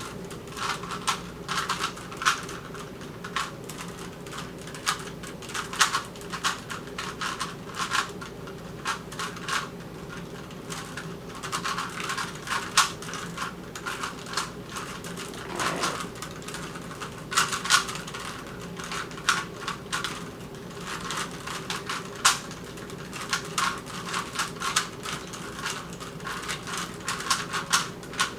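Rubik's Cubes being twisted fast in a timed race to solve them: a rapid, irregular clatter of plastic layers clicking as they turn.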